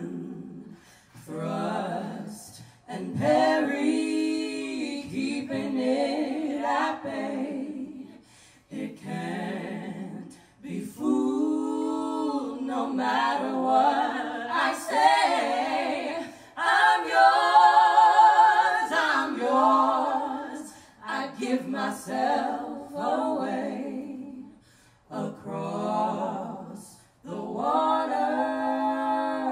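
Three women's voices singing together in close harmony, in sung phrases of a few seconds with brief pauses between.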